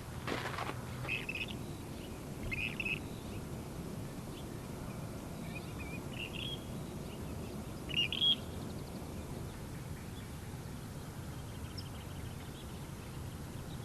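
Scattered short bird calls, about five of them, the loudest about eight seconds in, over a steady low rumble of outdoor background noise. A last footstep sounds right at the start.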